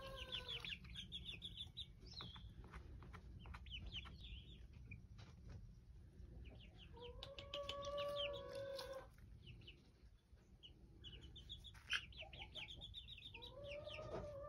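Young Jersey Black Giant chicks peeping in quick, high runs. Three long, level whining calls, each about two seconds, from a larger animal rise over the peeping: at the start, about halfway, and near the end.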